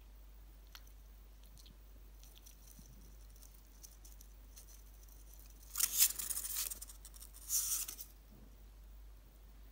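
Hedgehog eating: two short bursts of crisp crunching and chewing, the first about six seconds in and the second a second and a half later, with faint clicks before them.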